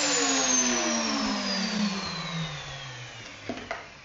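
Table-mounted router's motor winding down after being switched off, its whine falling steadily in pitch and fading. Two light knocks near the end.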